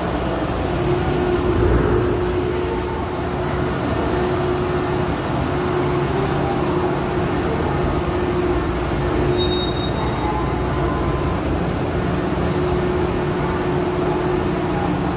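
Steady drone of a ro-ro passenger ferry's machinery heard in the enclosed car deck, a low rumble with a constant humming tone over it.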